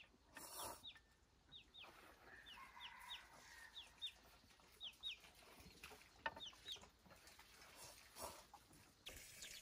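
Faint chicken calls: short, high, falling peeps, often in pairs, repeating irregularly, with a few faint clicks.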